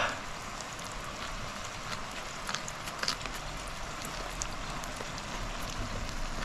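Pork belly (samgyeopsal) sizzling on a grill: a steady hiss with scattered crackles and pops of spitting fat.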